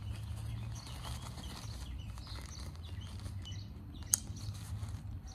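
A fabric drawstring bag being stuffed and pulled closed: faint rustling, with one sharp click about four seconds in, over a steady low hum.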